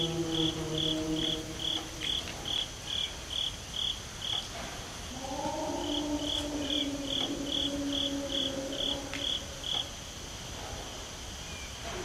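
Long, low, drawn-out howl-like calls: one fades out about a second and a half in, and another starts about five seconds in, rising slightly at its onset and held for about four and a half seconds. Under them a cricket chirps in a steady pulse of two to three chirps a second, pausing about four and a half seconds in. The recordist presents the calls as Sasquatch vocalizations.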